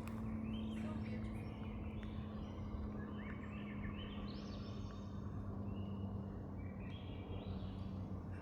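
Small birds calling: several short runs of quick high chirps, over a steady low hum.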